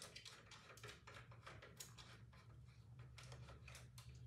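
Near silence with faint scattered clicks and rubbing from a ring light stand being handled and adjusted, over a faint steady low hum.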